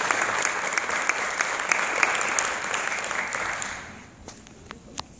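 Audience applauding, which dies away about four seconds in, leaving a few last scattered claps.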